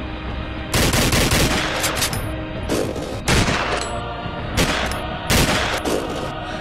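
A volley of rifle and pistol shots: about six shots fired irregularly, each with an echoing tail, over a low held music drone.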